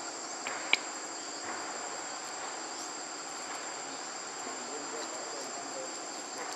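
Steady high-pitched chorus of insects, with a single sharp click a little under a second in.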